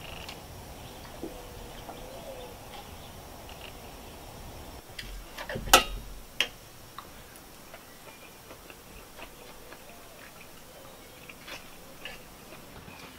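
Metal fork clinking and scraping on an enamelware plate during a meal, in scattered clicks, the sharpest two about six seconds in.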